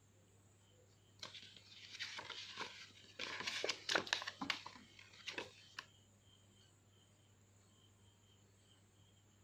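Folded paper instruction leaflet being opened out by hand, crinkling and rustling for about four and a half seconds, loudest in the middle, then stopping.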